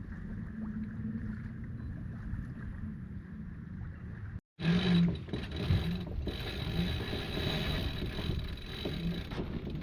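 Steady low noise of a boat under way on the water. About four and a half seconds in it cuts out for an instant and returns louder and hissier.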